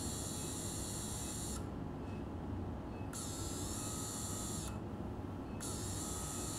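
High-speed otologic drill with a 0.8 mm diamond burr running with a steady high whine, grinding down the hydroxyapatite head of a titanium total ossicular prosthesis. The whine cuts out twice, for about a second each time, and spins back up.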